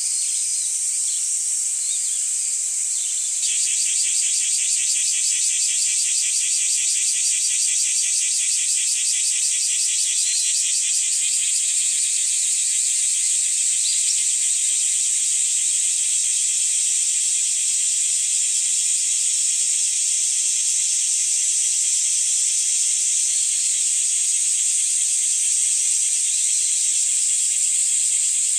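A steady high-pitched chorus of singing insects. About three seconds in, a louder insect joins with a fast, even pulsing trill that carries on throughout.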